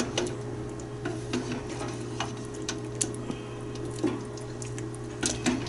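A spoon stirring and sloshing pozole broth in a large stainless-steel stockpot, with irregular light clicks of the spoon against the pot, over a steady low hum.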